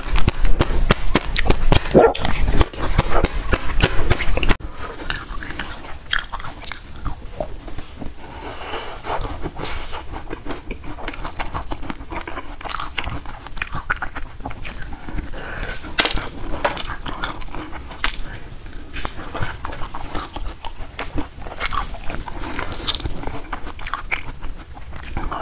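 Close-miked eating sounds: for about the first four and a half seconds, loud dense biting and chewing of a basil-seed ice jelly block; then, after a sudden drop in level, quieter scattered crisp bites and chewing of frost-coated blueberries taken off a skewer.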